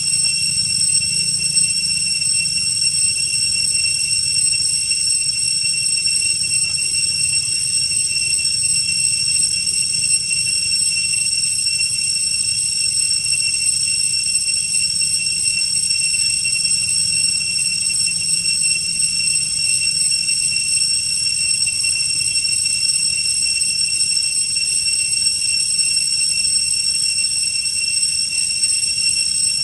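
Steady, unbroken high-pitched drone of a cicada chorus, one shrill tone with overtones, over a low rumble.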